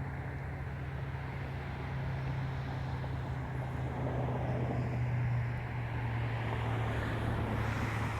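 EMD F59PH diesel locomotive approaching, its engine giving a steady low hum under a rumble that grows louder as it nears.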